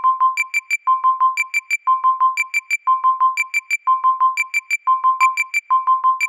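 Synthesized bell-like chimes in a fast repeating figure: three pings on a lower pitch, then three on a higher pitch, the figure coming round about once a second.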